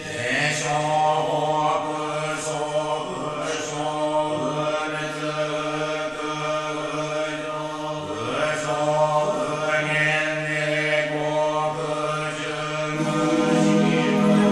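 Buddhist monks chanting a blessing in a low, steady monotone, with long held phrases that rise briefly and break every few seconds. The chanting grows louder near the end.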